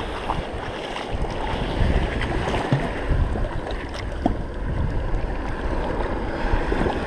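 Wind buffeting the microphone over lapping sea water, with a few faint clicks.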